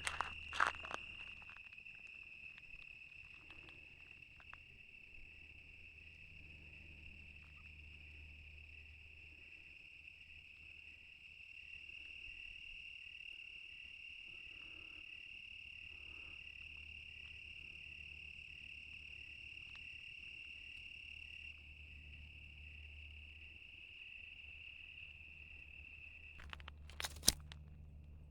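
Crickets chirping in a steady high-pitched chorus that blends into one continuous ringing tone. A few sharp clicks in the first second and two louder ones about 27 seconds in.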